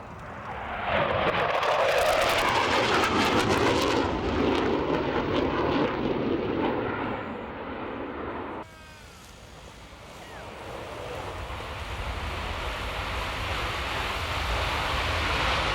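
Panavia Tornado IDS jet, with twin RB199 turbofans, making a fast, low pass: a loud rush of jet noise that swells about a second in. It cuts off abruptly about nine seconds in, and the jet noise then builds again towards the end.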